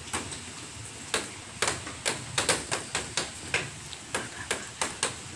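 Irregular sharp taps and clicks, a few a second, from hands handling a plastic bottle, plastic bag and pencils, over a steady hiss.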